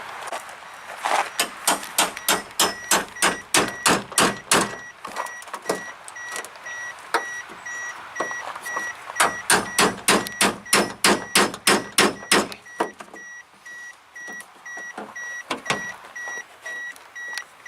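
Two runs of sharp, evenly spaced clicks, about four a second, while a car's warning chime beeps steadily about twice a second from a few seconds in.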